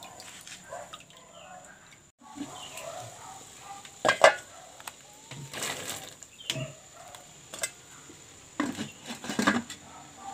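Aluminium cooking pot clattering: a plastic basket knocks against its rim and the metal lid is set on, giving a few sharp clinks and knocks, the loudest about four seconds in and near the end.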